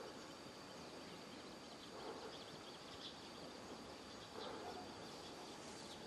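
Faint outdoor natural ambience: a steady hiss and a steady high tone, with a few faint, scattered bird chirps.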